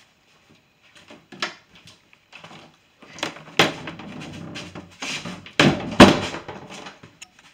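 Bumps, knocks and rustling of a phone being picked up and carried by hand, with fingers rubbing over its microphone; the sharpest knocks come about three and a half and six seconds in.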